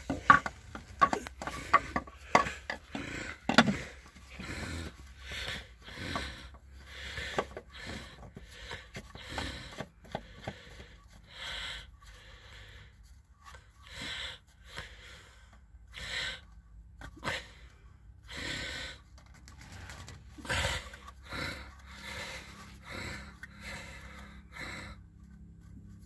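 A few sharp metallic clinks of a wrench against the pickup's underbody, then repeated short rasping swishes every second or two as a rag wipes the engine oil pan.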